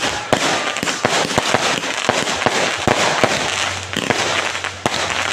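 Fireworks going off in a dense, continuous barrage: rapid sharp bangs, many a second, over a constant crackle.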